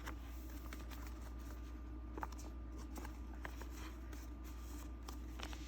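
Faint handling of trading cards and plastic binder pages: a few light, scattered clicks and rustles over a steady low hum.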